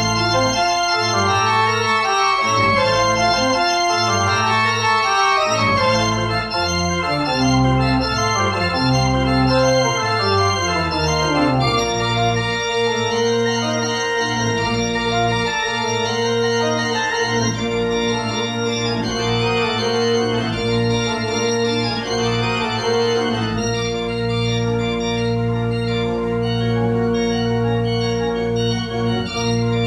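Organ music played on manuals and pedal keyboard. For about the first twelve seconds the bass notes move. After that a long low note is held under chords that keep changing.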